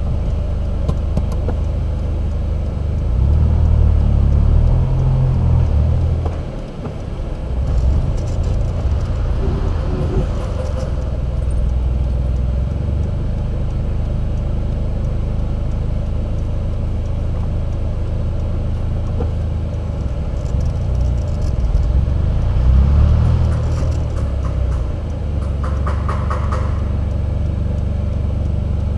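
Small car's engine running with a steady low rumble that swells twice, about three to six seconds in and again a little past twenty seconds, with a short dip around six and a half seconds.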